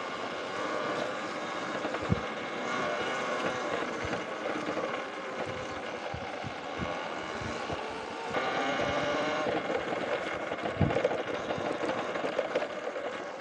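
Electric trail e-bike's motor whining while riding, the pitch shifting with speed and growing louder about eight seconds in, with a couple of low thumps from the trail.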